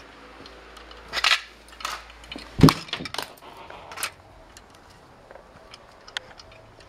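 Knocks, clicks and metallic rattles from handling a battered metal computer drive casing. The loudest is a single heavy thump about two and a half seconds in, with smaller clatters before and after it.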